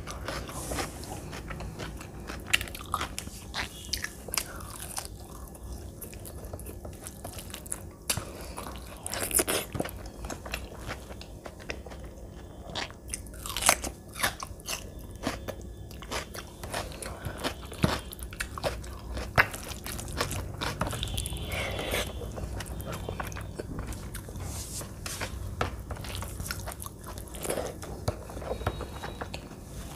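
Close-miked eating sounds of a person eating rice mixed with mashed potato by hand: chewing and biting with many sharp clicks and small crunches, and the hand working the food on the plate.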